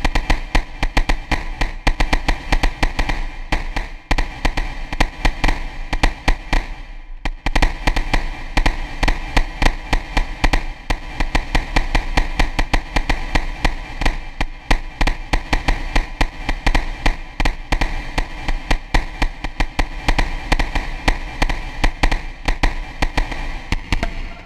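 Experimental electronic music: a dense, fast rhythm of clicking percussive hits over a steady low drone, with a brief break about seven seconds in.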